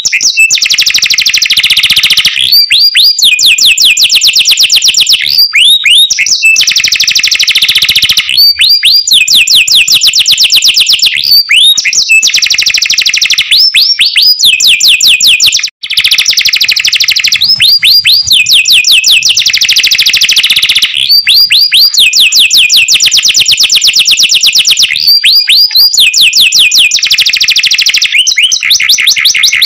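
Domestic canary singing loudly: long rolling trills of very fast repeated notes, broken every few seconds by short swooping whistled notes. The song cuts out for an instant about halfway, then carries on.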